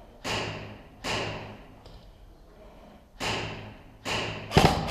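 Airsoft guns firing single shots, five sharp cracks in about four and a half seconds, each with an echoing tail; the last comes as a quick double near the end.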